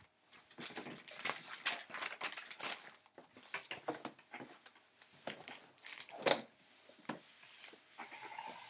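Handling noise as a Joie Every Stage child car seat is shifted and tilted onto a synthetic-leather seat-protector mat: rustling and crinkling with scrapes and knocks of the seat's plastic base, and one louder thump about six seconds in.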